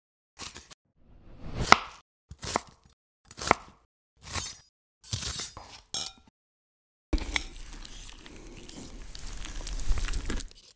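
A knife cutting a peeled potato on a wooden chopping board, about six separate chops with pauses between them, then cooked potato chunks dropping into a wire-mesh sieve. After that a metal spoon presses and scrapes boiled potato through the sieve over a steel bowl: a continuous scraping that starts suddenly and grows louder near the end.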